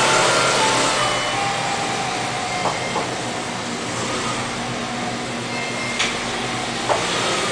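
Small motor scooter engine running at low speed as the scooter rides slowly along, with a steady hum and a few short sharp clicks.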